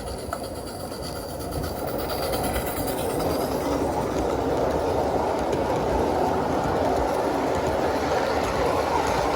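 Garden-scale live steam locomotive pulling a train of boxcars up an incline: a steady rushing of steam exhaust and wheels running on the track, growing louder over the first couple of seconds and then holding.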